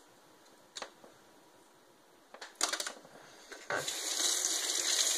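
Kitchen faucet turned on about three-quarters of the way through, water running over hands into a stainless steel sink in a steady rush. A few short clicks and knocks come before it.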